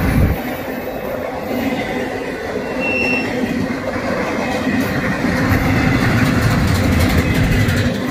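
Freight train of empty intermodal well cars rolling past, a steady rumble of steel wheels on rail that grows louder over the second half. A brief high wheel squeal sounds about three seconds in.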